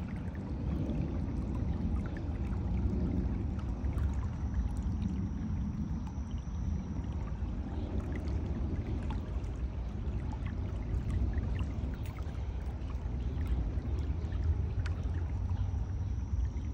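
Floodwater pouring steadily out of a concrete culvert and running down a narrow channel in the grass.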